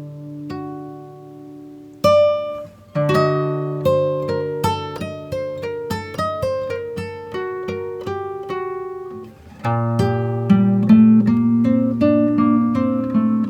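Background music on acoustic guitar: single plucked notes in a melody, then strummed chords from about ten seconds in.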